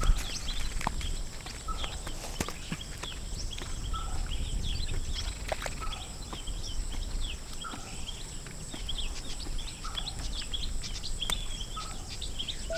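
Outdoor ambience of many small birds chirping, over a steady high-pitched whine and a light low rumble.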